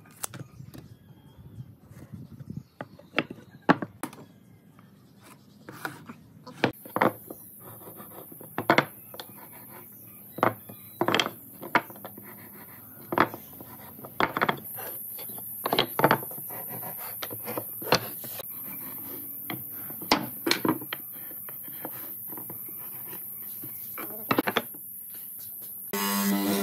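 Scattered sharp knocks and clicks of wooden blocks and hand tools (steel square, tape measure, marking gauge) being handled and set down on a wooden workbench, with some rubbing and scraping of marking out. Near the end a loud steady hum starts.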